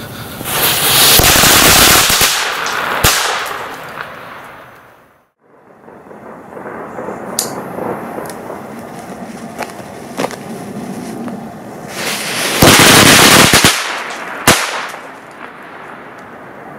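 Italian BKS 'Waterloo' firecracker string (Knallkette) of small flash bangers going off in a rapid chain of bangs for about two and a half seconds, trailing off with a few last bangs. After a few quieter seconds a second string goes off near the end: about a second of rapid bangs, then one last single bang.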